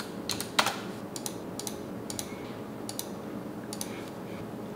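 Scattered clicks and key taps from a computer keyboard and mouse, often two or three close together, about every half second to a second, over a faint steady room hum.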